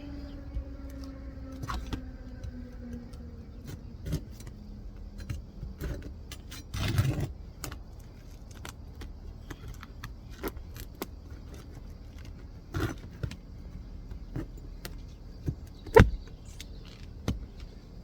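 Roof snake working under asphalt 3-tab shingles to pull the nails: scattered metallic clicks and scrapes, a longer scrape about seven seconds in, and a sharp knock about sixteen seconds in. A falling hum fades out over the first few seconds.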